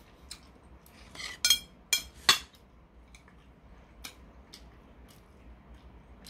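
Metal chopsticks clinking against a porcelain plate: three sharp, ringing clinks close together about two seconds in, then a few faint taps.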